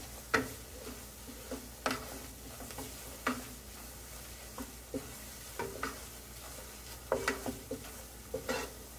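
Wooden spatula stirring and scraping chopped onion and flour around a nonstick frying pan, in irregular strokes about a second apart, over a low steady sizzle of the onion-flour roux cooking in butter.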